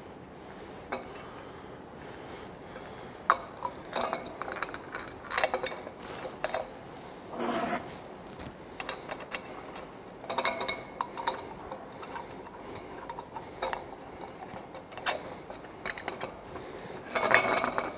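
Irregular metal clicks, clinks and short scrapes as an Allen key fits and tightens socket head cap screws in a light pole's metal slip-fitter joint.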